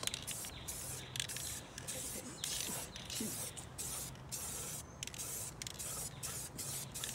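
Aerosol spray can of gloss apple red paint hissing in a run of short bursts with brief pauses, as a brake rotor is spray-painted.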